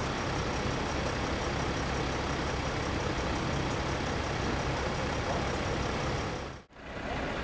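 Fire engine's diesel engine idling steadily at close range. The sound drops out briefly near the end.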